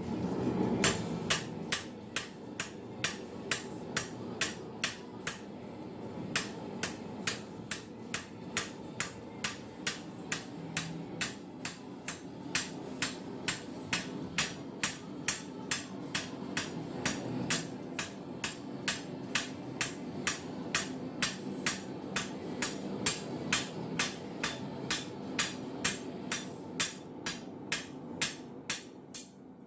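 Farrier's hammer striking steel flat bar on an anvil in a steady run of sharp blows, about two and a half a second, texturing the bar with the hammer's round face. A steady low noise runs underneath.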